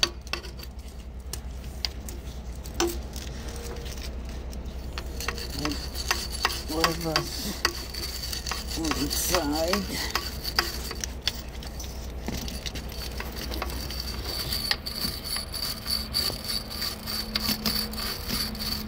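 Hand-held wire brush scrubbing a metal coolant passage on a Volvo B5 bus engine: a run of quick rasping strokes, scouring off dark deposits and old gasket residue to leave a clean, flat sealing surface.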